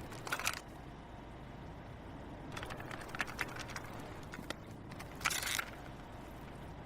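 Quiet break between songs: a low steady hum with a few soft bursts of clicks and rustles.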